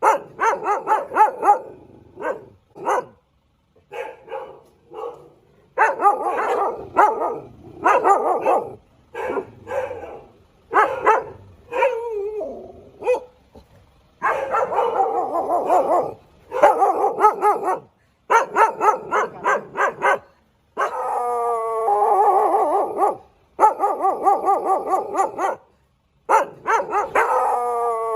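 Dog barking in rapid runs of short barks, with a couple of longer, drawn-out howling calls past the middle and near the end.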